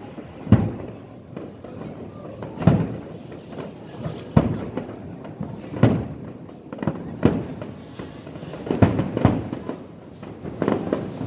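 Aerial fireworks shells bursting in a New Year display: a loud bang every second or two, about eight in all, with a rumble and crackle between them.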